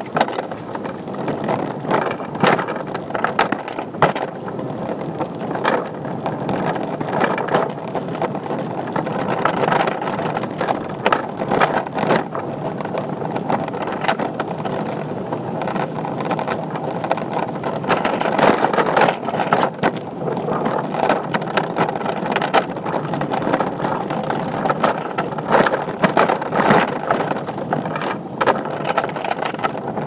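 Wheeled cart rolling along on its casters: a steady rolling noise with many small knocks and clicks from the wheels and frame.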